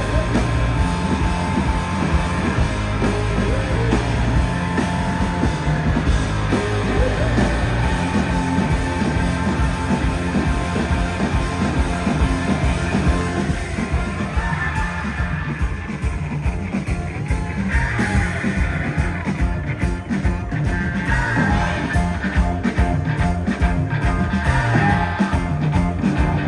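A live psychedelic garage-rock band playing loud and dense, with guitars and drums and bits of yelled vocals.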